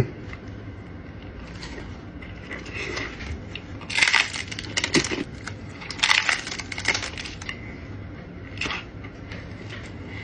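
Crunchy hard-shell taco being bitten and chewed: crisp crunching in short clusters, the first about four seconds in, more around five to seven and a half seconds, and a last one near nine seconds.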